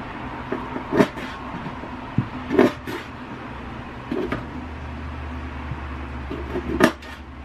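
Kitchen knife chopping the claws off raw chicken feet on a bamboo cutting board: about five sharp knocks of the blade striking the wood, irregularly spaced, over a low steady hum.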